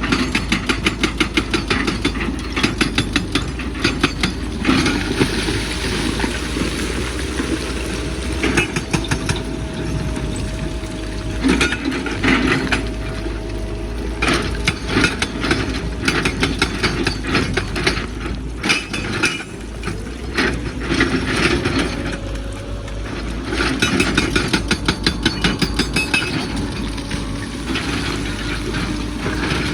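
Excavator's diesel engine running under load with a steady low drone, over it runs of fast, sharp clattering knocks as hard rock is scraped and broken loose and knocks against the steel bucket.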